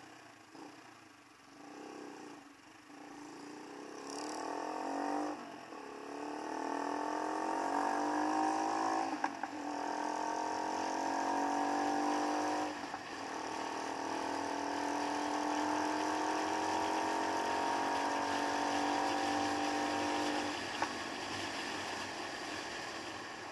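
Keeway Superlight motorcycle engine pulling away and accelerating, its pitch rising through each gear with three upshifts a few seconds apart, then holding steady at cruising speed until the throttle is rolled off near the end.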